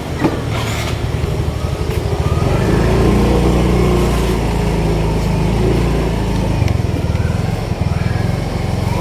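A vehicle engine running on the move, growing louder about two and a half seconds in.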